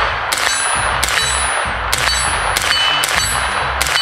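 Colt 9mm AR-15 carbine firing six unsuppressed semi-automatic shots at an uneven pace, about one every half to one second. Each shot is followed by a ringing metallic clang, as of a struck steel target.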